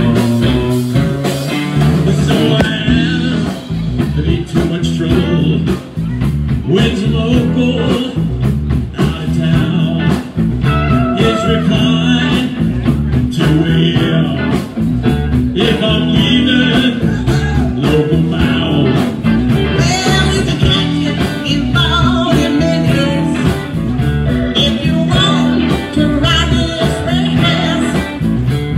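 Live blues-rock band playing loud, with electric guitars over drums and keyboard.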